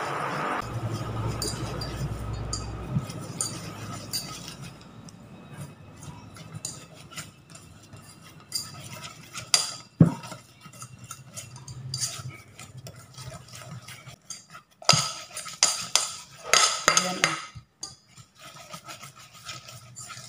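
Wire whisk clinking and scraping against a stainless steel bowl, mixing flour into egg yolk batter, in irregular strokes with a few sharp knocks.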